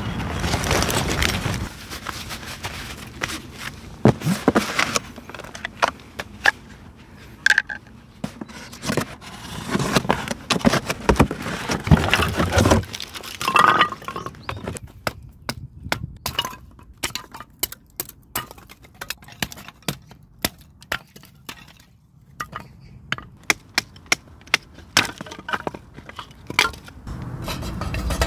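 Split firewood sticks knocking and clattering against each other and against a thin folding metal wood stove as they are handled and stacked: a long run of sharp irregular clicks and knocks. Near the start there is rustling and clicking of backpack straps and buckles.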